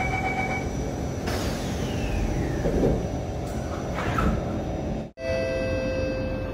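Singapore MRT train door-closing chime ending, then the train's sliding doors closing with a rush of noise and a thud about three seconds in. After an abrupt cut, a steady hum with a couple of held tones.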